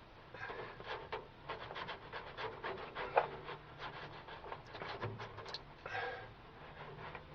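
Irregular rustling, crinkling and rubbing of a self-adhesive sound-deadening insulation sheet as it is handled and pressed into place.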